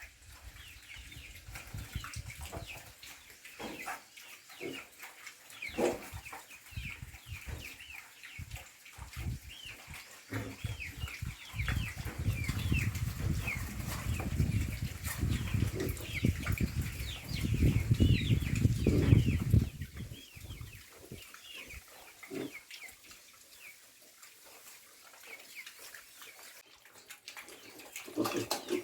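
Chickens chirping and clucking, many short high calls throughout, with a loud low rumble through the middle.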